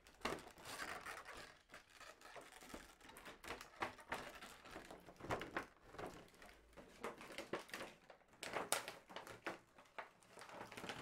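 Clear plastic toy packaging crinkling and crackling in irregular bursts as it is handled and pulled away from the puppet.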